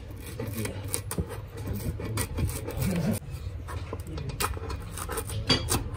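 A blunt pry tool scraping and clicking against the metal frame of a JBL 2241H 18-inch speaker as the glued edge of the cone surround is worked loose, dry and without solvent. It makes irregular rubbing strokes with many small ticks.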